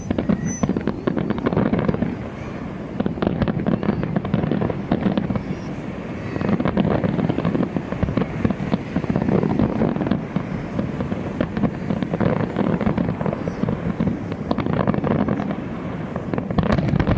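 Fireworks display: a dense, continuous barrage of bangs and crackles, starting with a sudden burst.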